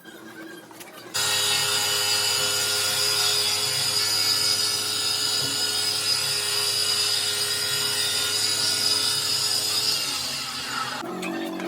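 A handheld power tool switching on abruptly and running steadily with a high whine, working on a cracked plastic car headlight; it eases off and stops near the end.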